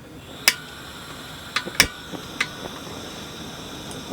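Four sharp clinks, the middle two close together, over about two seconds, each leaving a faint ringing.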